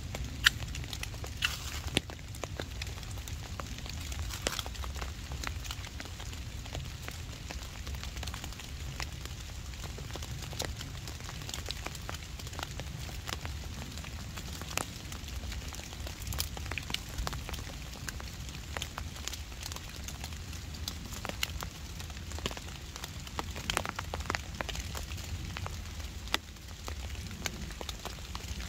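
Small twig-and-tinder fire catching, crackling with scattered sharp snaps, over a steady rumble of rain.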